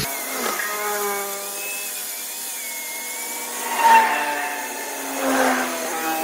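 A power tool running on wood, its motor whine wavering in pitch, with louder moments about four and five and a half seconds in as it bites harder.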